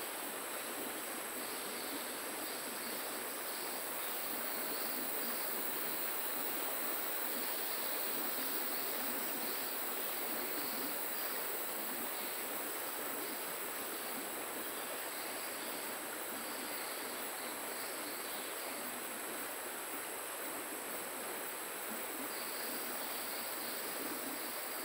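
Steady rush of flowing river water, with a high, steady drone of insects over it.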